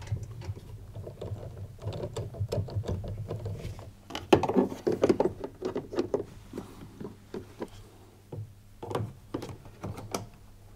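Plastic parts of a tumble dryer's fan housing clicking, knocking and rattling as they are handled and refitted by hand, with a dense run of clatter about four to six seconds in.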